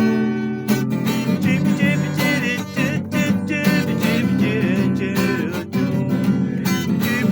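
Acoustic guitar strummed steadily, an instrumental passage between the song's sung lines.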